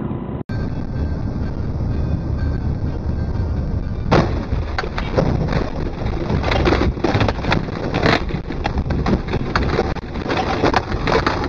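Vehicle and road noise heard from inside a moving car, with a run of irregular thumps and knocks from about four seconds in.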